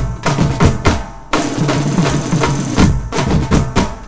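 Live drum band of many tom drums with bass drum and cymbals, playing a loud, fast rhythm of sharp accented strikes. The drumming breaks off about a second in and comes straight back, then thins out near the end.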